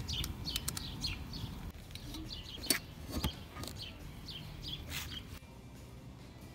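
Small birds chirping over and over in short falling chirps, which stop about five seconds in. Several sharp clicks and knocks come through, the loudest a little under three seconds in and again a half-second later.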